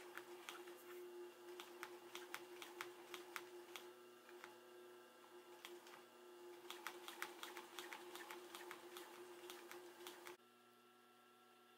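Industrial sewing machine with a custom-made presser foot stitching an upholstery cover down over foam channels: a quick run of needle clicks, stitch by stitch, slowing for a moment midway. The stitching stops suddenly about ten seconds in, leaving only a faint steady hum.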